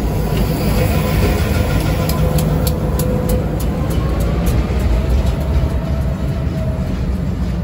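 Union Pacific local freight train moving at low speed: a loud, steady low rumble with a faint, steady whining tone over it and scattered light clicks.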